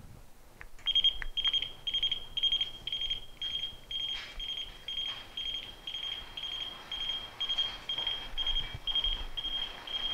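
Warning beeper on a powered wall-panel transfer conveyor, the Triad Transfer Station, sounding short high beeps a little over two times a second while the carriage travels with a panel. A couple of faint clicks come just before the beeping starts.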